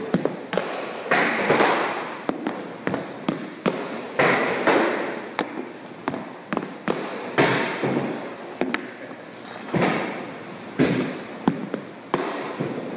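Hockey shooting practice: a stick scrapes and slaps pucks off the surface, and the pucks clack off the goalie's pads, stick and the boards. The sharp clacks and thuds come in clusters about every two to three seconds, with a short scraping rush before each.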